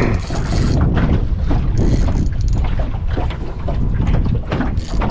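Wind buffeting the microphone: a heavy, gusty rumble that surges and dips.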